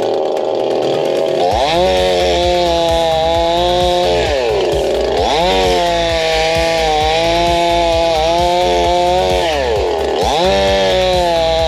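Unbranded 'Chainsaw 5200' two-stroke gas chainsaw with a 22-inch bar, running hard while cutting a tree. Its engine pitch climbs about a second and a half in, sags and climbs again twice as the revs drop and recover.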